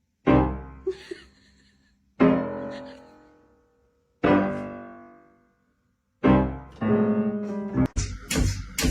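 Piano music: four chords struck about two seconds apart, each left to ring and fade out. Near the end it turns into a quicker run of repeated notes.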